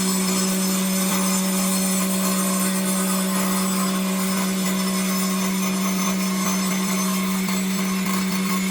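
Circular saw running steadily and sawing wood: a constant low hum under an even hiss, with no change in speed or load.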